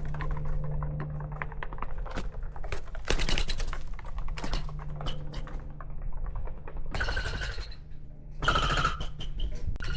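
Birds feeding right at the camera: a rapid run of small pecking and scratching clicks, with two short pitched bird calls near the end.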